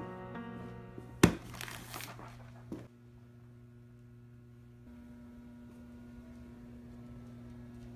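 Piano music trailing off, then a sudden loud crackling noise lasting under a second, followed by a small knock. After that a faint steady low hum.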